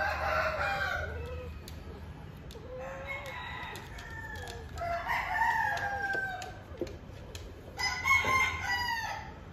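Cats mating, with a cat yowling: four long, drawn-out yowls that bend in pitch, each about a second to a second and a half long, a few seconds apart.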